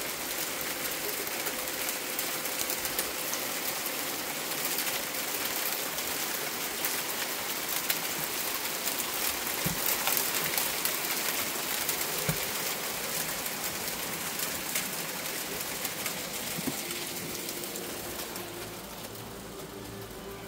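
Hail and rain falling on a wooden deck and patio furniture: a dense, steady patter full of small ticks, with a few sharper knocks. It grows fainter near the end, where a steady hum comes in.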